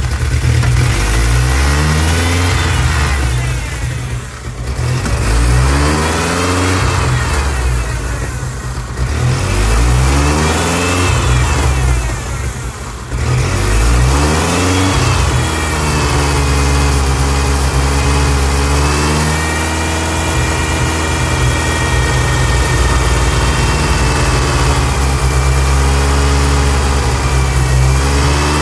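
1999 Ford Ranger's 2.5-litre four-cylinder engine revved up and back down about four times, then running steadily. The engine has a large vacuum leak.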